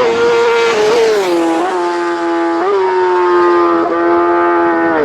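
Racing motorcycle passing close at speed: its engine note drops in pitch about a second in as it goes by, then holds high and steady with a few brief blips as it pulls away.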